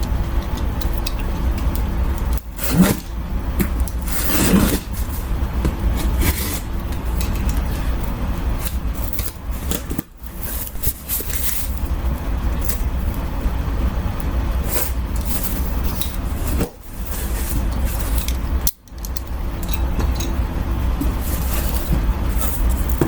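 Cardboard meal-kit box being opened and handled: irregular scrapes and rustles of cardboard and packaging over a steady low rumble.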